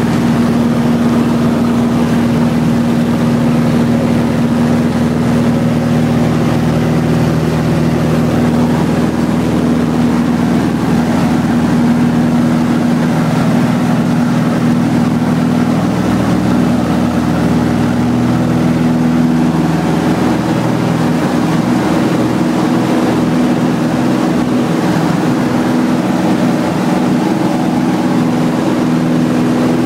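Stinson Voyager's piston engine and propeller running steadily at takeoff power, heard from inside the cabin through the grass takeoff roll and climb-out. A low rumble beneath it thins out past the middle.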